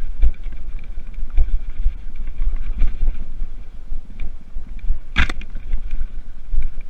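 Wind buffeting an action camera's microphone over the rumble of a mountain bike rolling fast on a dirt singletrack, with frequent small jolts from bumps. A single sharp clack about five seconds in.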